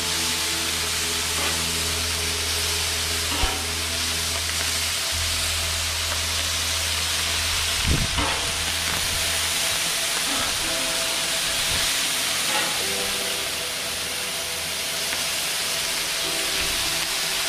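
Bacon sizzling on a cast iron flat top griddle, a steady hiss of frying fat. Metal tongs click sharply twice as the strips are turned, about three and a half and eight seconds in.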